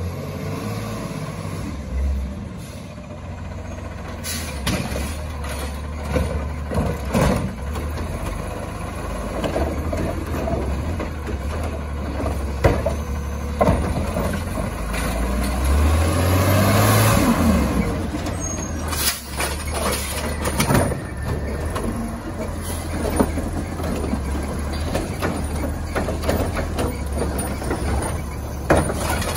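Garbage truck on a recycling collection route: its diesel engine running, with air brake hisses and scattered clanks and knocks. The engine revs up and settles back about halfway through.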